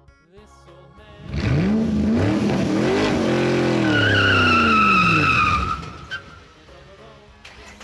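Cartoon car engine sound effect revving up and back down, with a high tyre screech lasting under two seconds partway through.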